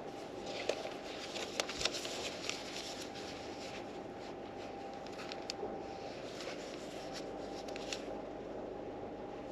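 Paper rustling in two spells, with a few light clicks, as book pages are handled and turned, over a steady low hum.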